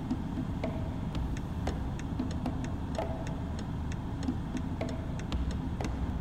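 Steady low rumble of a car idling, heard from inside the cabin, with a light, regular ticking running through it.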